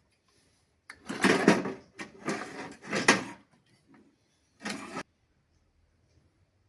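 Bicycle headset cups being fitted into the frame, metal parts clattering and scraping in four or five short bursts over the first five seconds.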